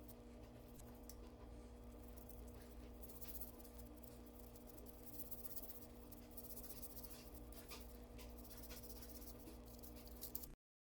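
Faint scratching and rubbing with scattered small clicks, like hand work on a small part, over a steady low electrical hum. It cuts off abruptly near the end.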